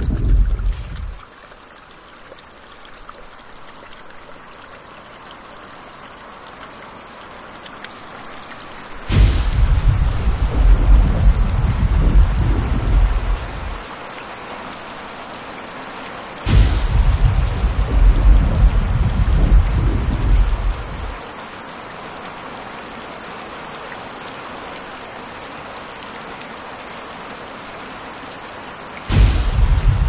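Steady heavy rain with thunder. A rumble dies away in the first second, then three more claps come: a third of the way in, just past halfway, and just before the end. Each starts with a sharp crack and rolls on for several seconds.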